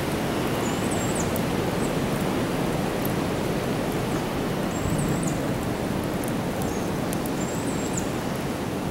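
Wood fire burning in a concrete-block rocket stove: a steady rushing noise of the fire drawing air, with a few faint crackles.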